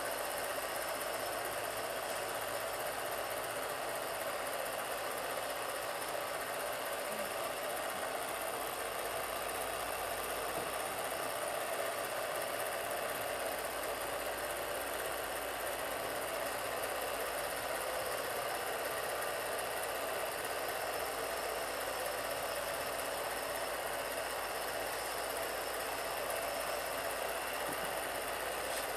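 Home-movie film projector running, a steady unchanging mechanical noise.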